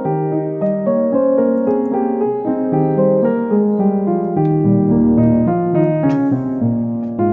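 Background piano music, a melody of notes in steady succession.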